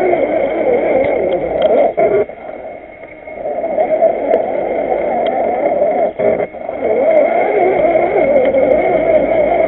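1/6-scale RC Willys jeep crawler's drivetrain running under throttle, heard from a camera mounted on the model, with a steady high whine over it. The drive drops away about two seconds in for over a second, comes back, and dips again briefly near six seconds.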